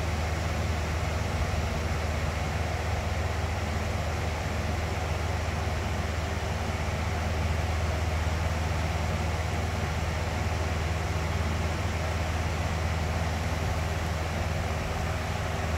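Electric box fan running steadily: an even rush of air with a deep low hum underneath, never changing.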